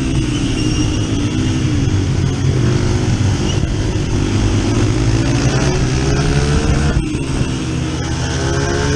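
Dirt bike engine running and revving up and down as the bike rides around the flat track, its pitch rising and falling several times, over a steady rushing noise.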